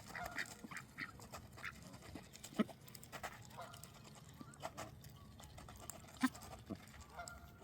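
Ducks giving faint, short quacking calls in scattered bursts, with a few sharp clicks.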